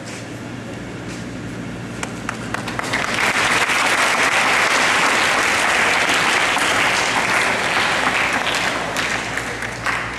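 An audience clapping. The applause builds up about two to three seconds in, holds, then thins out near the end.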